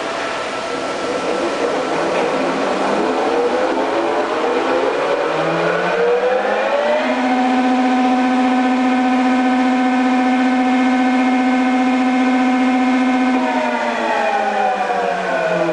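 FAT 630 straight-bed lathe running under power, its gear whine rising in pitch as the spindle speeds up, holding a steady pitch for about six seconds, then falling as it slows near the end.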